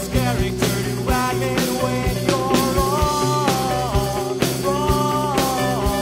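Indie rock band playing a song: a drum kit keeps a steady beat, about two strikes a second, under bass and a melodic line that bends in pitch.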